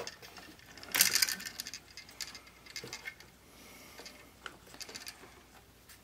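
Small clicks and scraping of wires and a plastic wire nut being handled in an electrical box as a wire pigtail is undone, with a brief cluster of clicks about a second in and faint scattered ticks after.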